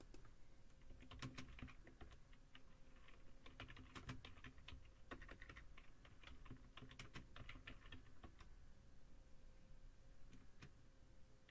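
Faint typing on a computer keyboard: irregular key clicks, most of them in the first two-thirds, with a few more near the end.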